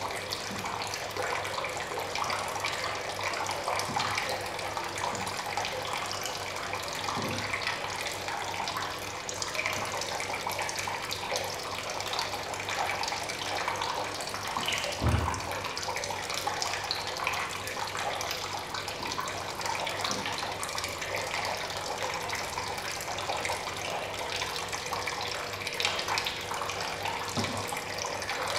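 Steady running water, like a tap filling a tub, with a few dull thumps, the loudest about halfway through.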